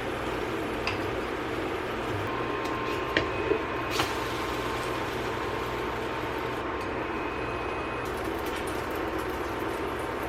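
Steady noise at the stove as a pancake cooks in a buttered pan, with a few light clicks about three and four seconds in.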